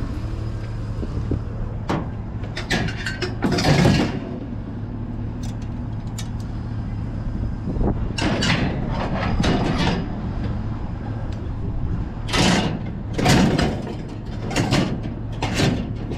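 Trash being rummaged through in a dumpster: bags and debris shifted and rustled in several irregular bouts, the loudest in the second half, over a steady low hum.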